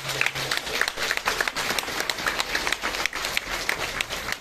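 Audience applauding, with many separate hand claps.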